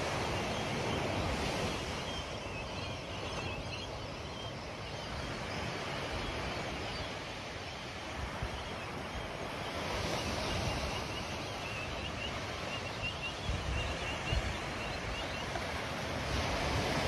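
Small waves breaking and washing up a sandy beach, a steady surf noise, with wind buffeting the microphone now and then, most near the end.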